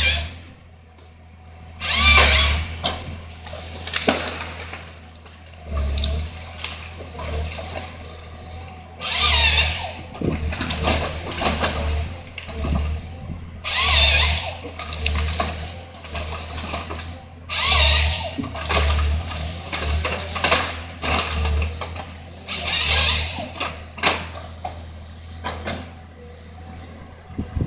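Timberjack forestry harvester at work, its diesel engine running steadily under a series of loud noisy bursts about a second long, roughly every four to five seconds, as the crane and harvester head handle the stems.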